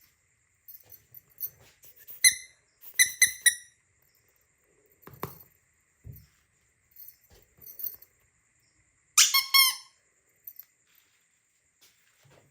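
A squeaky toy squeezed several times, giving short high squeaks: once, then three in quick succession, then a quick cluster near the end. Between squeaks there are light clicks and knocks of toys being handled.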